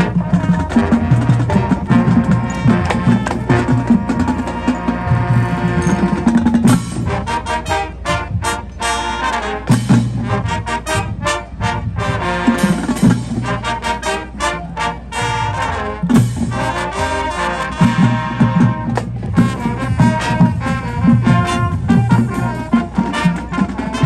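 Marching band playing a field show: the brass section holds loud sustained chords, then about six seconds in it switches to punchy rhythmic stabs driven by drumline and cymbal hits, and returns to fuller sustained playing about two-thirds of the way through.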